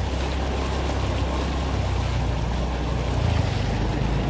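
Motor scooter engine running steadily while it rides through shin-deep flood water, with a constant rush and splash of water around it.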